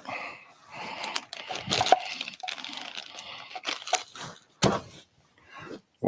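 Clear plastic bag crinkling and rustling as it is handled in gloved hands, with one louder sharp crackle about four and a half seconds in.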